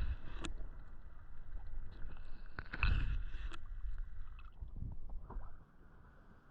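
Water sloshing and gurgling with a low rumble, broken by a few sharp clicks, loudest about three seconds in and dropping off near the end.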